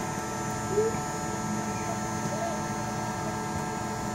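Hot air rework station blowing over a phone circuit board: a steady hum with several thin, high steady tones. It is desoldering the filter capacitor in the LCD backlight section, suspected of causing the short.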